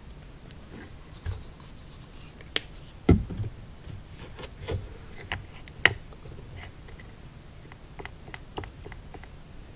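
Light clicks and taps with some rubbing from mixing a watery paint stain in a palette, the two loudest taps about three and six seconds in.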